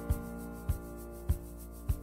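Background music: sustained chords over a soft, steady beat, with a low drum hit about every 0.6 seconds.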